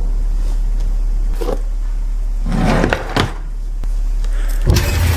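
Low, steady drone of horror-film sound design, with two faint soft swells in the middle and a louder, deeper rumble coming in near the end.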